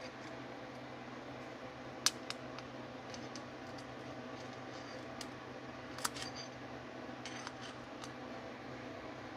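A screwdriver clicking and scraping against a power jet and the metal carburetor body as the jet is screwed into a Marvel Schebler carburetor: a few sharp metallic clicks, the loudest about two and six seconds in, over a steady faint hum.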